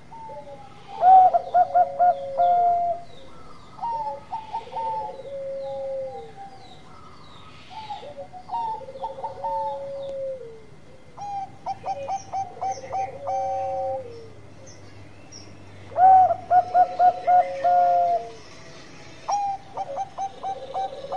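Bangkok-strain zebra dove (perkutut bangkok) singing its cooing song. Each phrase is a quick run of short stuttering coos ending in a longer falling coo, repeated about every three to four seconds. The loudest phrases come about a second in and again about sixteen seconds in.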